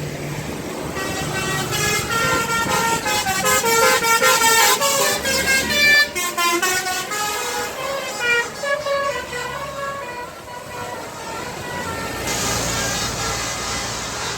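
Bus telolet horn playing a fast, multi-note melody of stepping tones, starting about a second in and dying away around ten seconds, over street noise.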